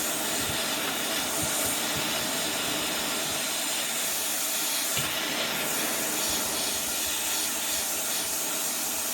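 ATTEN ST-862D hot air rework station blowing a steady hiss of hot air onto a solder joint to melt it for desoldering.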